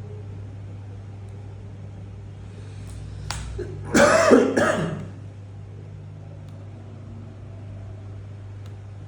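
A person coughing, two quick coughs about four seconds in, over a steady low hum in the room. The cough is typical of the chronic cough under discussion.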